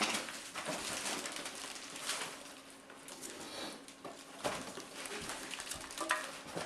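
Scattered rustles, clicks and light knocks of things being handled, over a faint steady hum.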